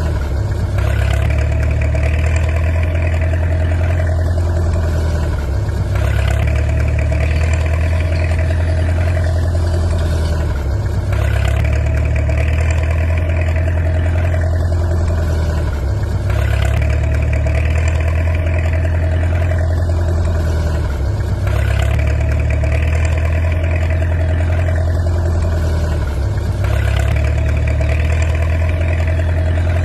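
Looped engine-idling sound for an RC toy tractor: a steady low engine drone with a higher hum, the same loop restarting about every five seconds.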